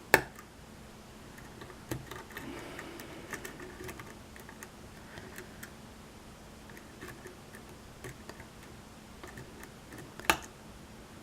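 Faint, scattered ticks and clicks of a hook pick working the pins inside a pin-tumbler challenge lock under tension, with a sharper click at the very start and another about ten seconds in, the kind a pin makes when it sets or drops.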